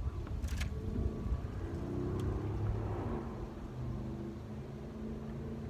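A motor or engine droning steadily over a low rumble, its pitch bending down and settling about halfway through.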